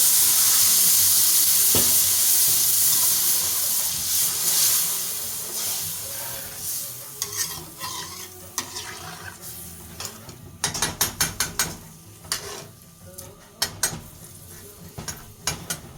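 Loud sizzling as water hits a hot pan, fading away over several seconds, then a run of quick clicks and scrapes of a cooking utensil stirring against the pan.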